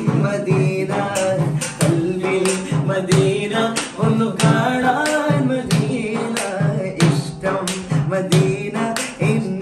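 A small group of men singing an Islamic madh song (a devotional song praising the Prophet), with sharp percussive beats recurring under the voices throughout.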